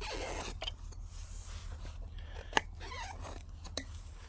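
Heavy-duty rubber tyre being worked off a wide wheel rim, its bead scraping and squeaking against the metal, with a couple of sharp clicks past halfway.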